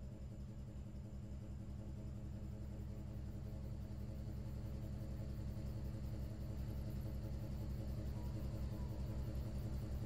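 A boat engine running steadily: a low rumble with a fast, even pulse that grows slowly louder.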